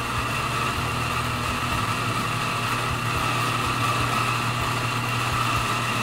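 Electric espresso grinder running steadily, grinding coffee into a portafilter held under its spout: a constant motor hum with a high whine over it.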